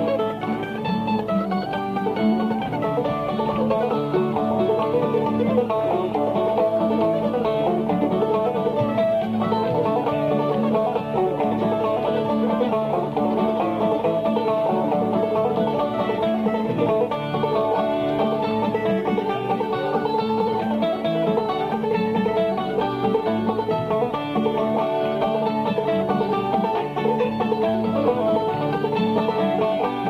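Banjo picking an old-time instrumental tune, with other instruments playing along in a steady, unbroken run.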